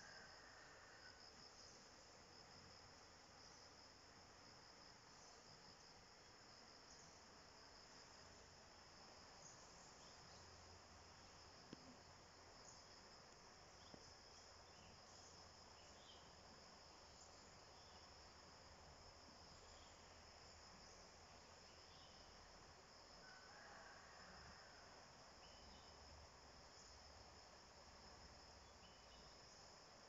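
Faint, steady high-pitched chirring of insects in the surrounding vegetation, with a few brief chirps over it and two small clicks near the middle.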